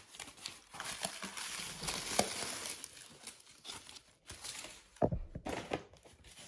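Packing material rustling and crinkling as a boxed fire alarm is unpacked, followed by a few light knocks of handling near the end.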